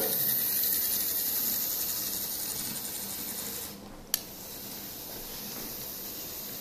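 Small electric motor of an N scale model locomotive running on PWM power along the track, a high hissing whir that slowly fades and stops about three and a half seconds in. A single sharp click comes a moment after it stops.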